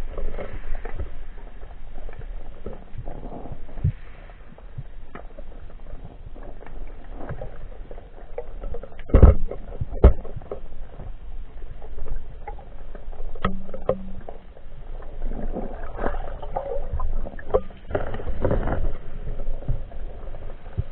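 Muffled underwater sound picked up by a camera in a waterproof housing while a spearfisher swims: water movement and handling noise with scattered clicks. Two loud knocks come about nine and ten seconds in.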